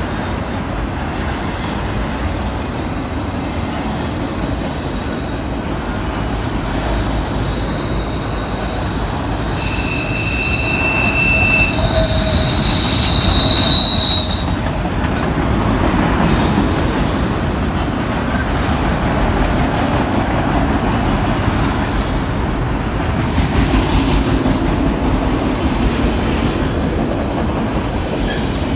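Freight train rolling past, a continuous rumble of steel wheels on rail. From about ten to fourteen seconds in, wheels squeal in several steady high tones.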